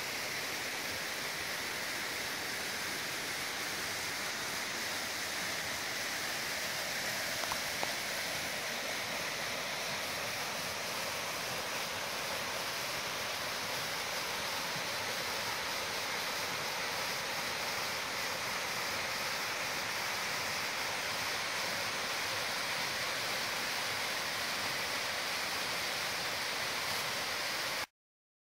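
Waterfall pouring into a rock pool: a steady rush of falling and splashing water that cuts off suddenly near the end.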